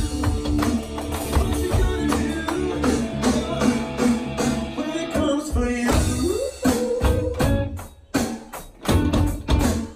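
Funk-rock song with singing, electric guitar and bass over a drum kit played on electronic drums. About six and a half seconds in there is a rising slide, and near the end the music breaks into separate short hits with brief gaps between them.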